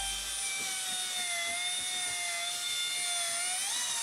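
Electric drill spinning a P500 sanding disc on a foam interface pad, wet-sanding a plastic headlight lens with light back-and-forth strokes. A steady motor whine that wavers slightly in pitch as the pressure changes and rises briefly near the end.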